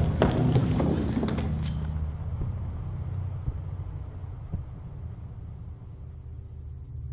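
Low rumbling drone from the film's score, slowly fading, with a handful of sharp knocks in the first two seconds.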